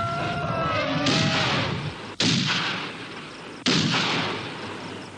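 An elephant trumpeting, its call dying away about a second in, then heavy rifle shots, one about every second and a half, each ringing out with a long echoing tail; a fourth shot comes right at the end.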